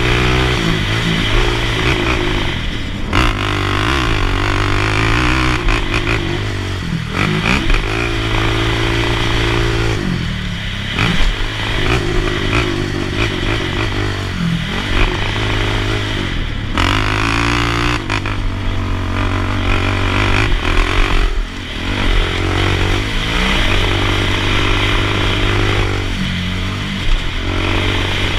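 Sport quad (ATV) engine under hard riding. Its pitch climbs and falls back over and over as the throttle is opened and closed.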